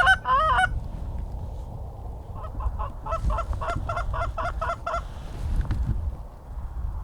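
Canada geese honking and clucking: a loud burst of calls at the very start, then a quick run of short honks about two to five seconds in.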